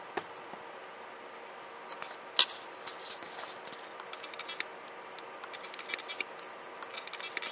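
Steady hum of a desktop PC's fans running near full speed while the CPU is under a Prime95 stress load, with a sharp click about two and a half seconds in and several short runs of faint scratchy clicking.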